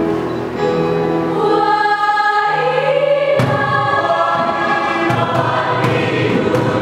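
High-school choir singing held chords that shift in pitch, with one sharp percussive hit about three and a half seconds in and a few lighter hits after it.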